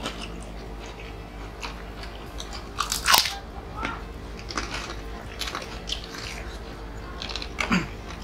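Close-miked crunching and chewing of crispy fried snack crackers and chips, in scattered bites, the loudest crunch about three seconds in and another near the end.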